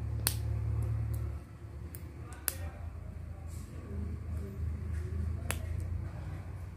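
Plastic construction sticks being snapped together by hand: a few sharp, separate clicks, three clear ones spread over several seconds, with a low hum underneath.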